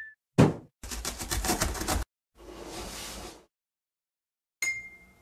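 Cartoon intro sound effects: a loud thud as the box lands, then a rapid rattling for about a second, a hiss for about a second, and a short ringing ping near the end.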